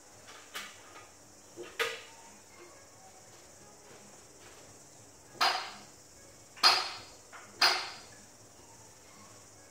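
A few sharp knocks with a short ringing tail: two lighter ones early, then three louder ones about a second apart past the middle. A steady high hiss runs underneath.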